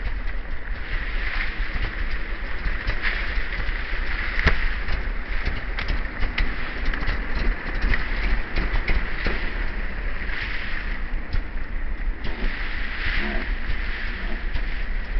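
Trials motorcycle engine running at a distance, swelling every few seconds as the throttle is opened, under a steady low rumble of wind on the microphone and many small clicks.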